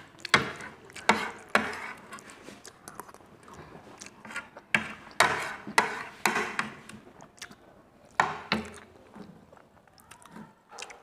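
Metal fork and spoon clinking and scraping against a ceramic plate in irregular clusters of sharp clicks, with close-up chewing between.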